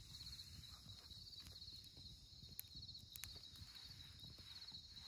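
Faint night insects, crickets, trilling steadily in a high, evenly pulsing chorus, with a couple of faint clicks.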